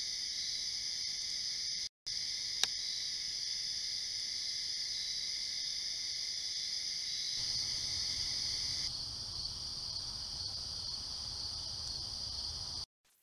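Night chorus of crickets and other insects, a steady high-pitched trilling in several pitch bands. It drops out for a moment about two seconds in, with a sharp click just after, a low rumble joins about halfway through, and the chorus cuts off just before the end.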